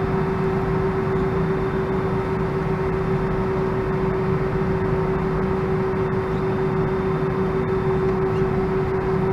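Airbus A319 cabin noise while taxiing with the engines at idle: a steady rumbling hum with a constant droning tone that does not change pitch.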